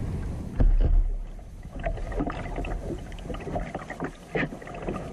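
A plastic kayak being paddled on calm water: irregular light splashes and drips from the paddle, with small knocks against the hull.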